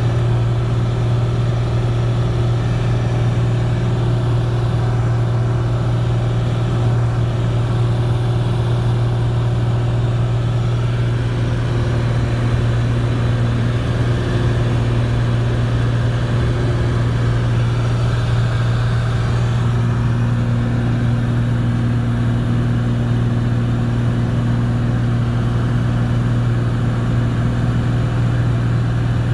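Light aircraft's piston engine and propeller running steadily in cruise, heard inside the cabin as a loud, even low hum. A second, higher hum joins about two-thirds of the way through and drops out near the end.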